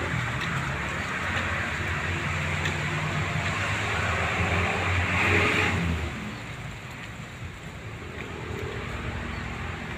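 A motor vehicle passing: a low engine note and road noise grow louder, peak about five seconds in, then drop away.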